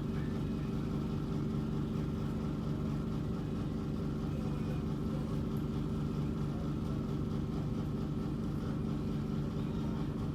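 A steady low mechanical hum, like a motor running, unchanged throughout.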